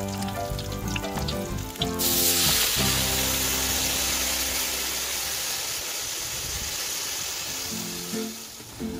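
Liquid poured into a hot metal wok of oil-fried chilies and garlic hits the pan about two seconds in with a sudden loud sizzle that slowly dies down over several seconds. Plucked guitar music plays before the sizzle and returns near the end.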